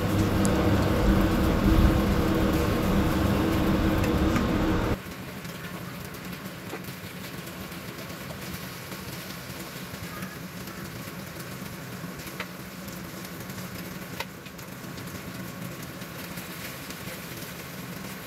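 Beef cubes sizzling in a frying pan as they brown, with a few faint clicks of metal tongs turning them. The sizzle is louder for about the first five seconds, then drops suddenly to a quieter level over a steady low hum.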